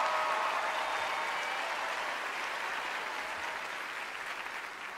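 Audience applauding, the clapping slowly dying down.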